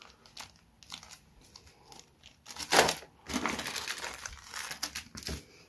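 Small plastic zip bags of metal RC parts crinkling as they are handled: a few faint rustles at first, a loud crackle a little under three seconds in, then steady crinkling of the bags being picked through until shortly before the end.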